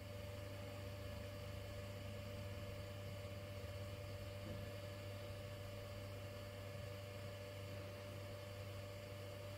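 Faint steady hum with a soft, even hiss as chopped onions fry gently in oil in a pressure cooker.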